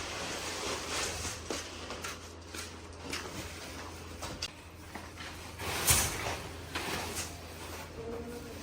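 Scattered light knocks and clicks over a steady low hum, with one louder knock about six seconds in.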